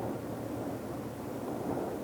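Deep ocean ambience played as a sleep noise: a steady, dark, muffled noise bed heavy in the low end, swelling and easing slightly with no distinct waves or other events.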